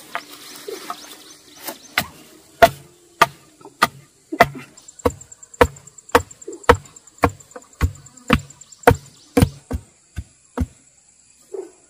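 Chopping bamboo with a blade: a steady run of about seventeen sharp blows, nearly two a second, starting about two seconds in and stopping shortly before the end.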